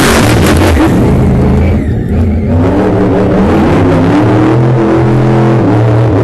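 Monster truck engine revving hard and loud, its pitch rising and falling again and again.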